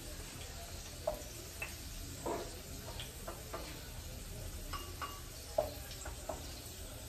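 Potatoes frying in oil in a nonstick pan with a light sizzle, and a series of short clicks and scrapes as a utensil lifts pieces out of the pan.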